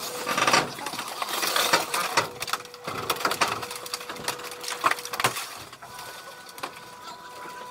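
Car crushing machine at work on a scrap car: irregular sharp cracks, snaps and creaks of the car body, over a steady machine tone that drops out and comes back.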